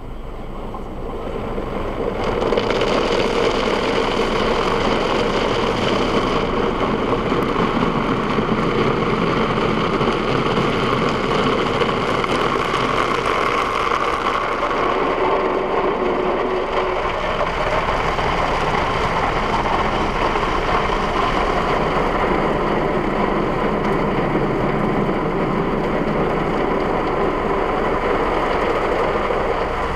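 Automatic car wash heard from inside the car: rotating brushes scrubbing over the foamed, wet windshield with water spraying on the glass, a steady noise that swells about two seconds in.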